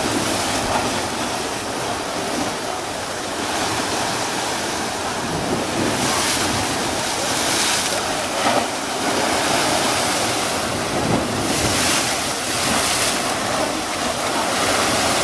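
Sea surf washing and breaking in a continuous rush, from somewhat rough waves, with louder surges about six and twelve seconds in.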